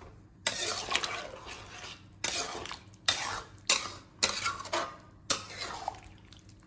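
A spatula stirring chicken curry in thick gravy in a metal kadai, knocking and scraping against the pan about every second, six strokes in all.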